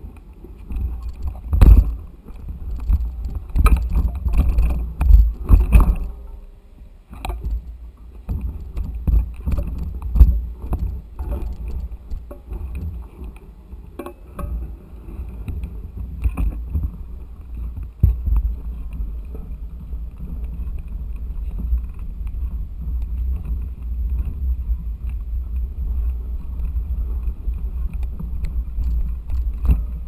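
Mountain bike ridden over a bumpy grass trail, heard from a camera mounted on the bike: a steady low rumble with sharp knocks and rattles each time the bike jolts over the ground, most in the first few seconds.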